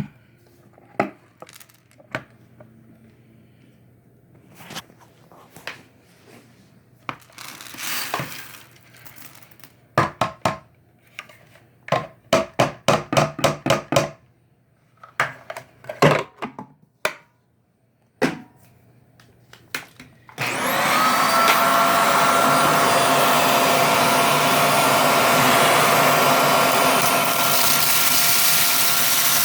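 Scattered knocks and clatter, with a quick run of taps partway through. About two-thirds of the way in, a bagless cyclonic vacuum cleaner switches on suddenly and runs steadily with a motor whine.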